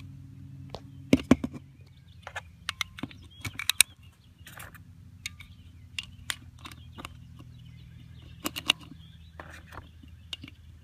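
Brass .40 S&W cartridges clicking as they are pressed one at a time into a stainless Springfield XD mod.2 pistol magazine: sharp metallic clicks coming in small clusters every second or two.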